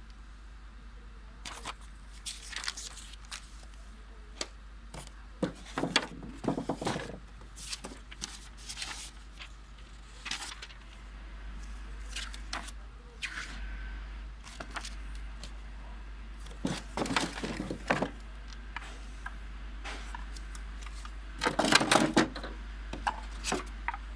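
Handling noise from unpacking: irregular clicks, knocks and rustles of packaging and plastic parts being moved and opened, with a louder cluster near the end.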